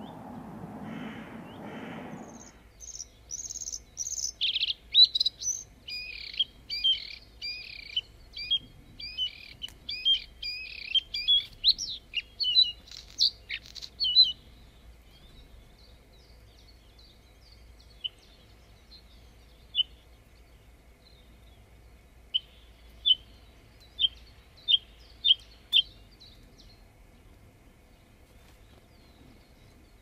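A songbird singing a fast, varied song of high phrases for about twelve seconds, then scattered single notes, and later a run of six short, sharp notes at about two a second.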